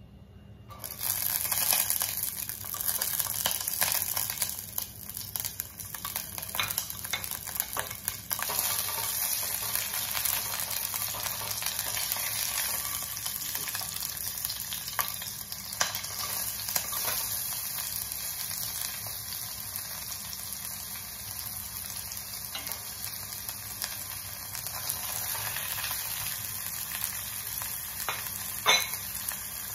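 Whole spices, green chillies and sliced onions sizzling in hot oil and ghee in a pot: a steady frying hiss that starts about a second in. One sharp knock near the end.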